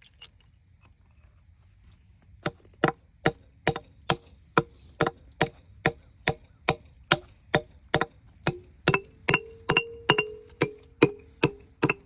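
Sharp, dry, wooden-sounding knocks in a very even rhythm, about two a second, starting a couple of seconds in, with faint held pitched notes under some of them.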